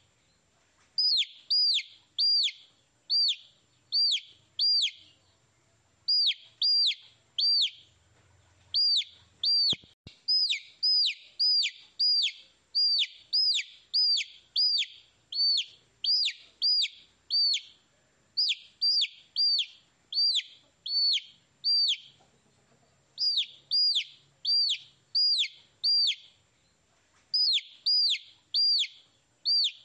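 Baby chicks peeping: high chirps, each a quick falling note, repeated in runs of three to six at about three a second with short pauses between runs.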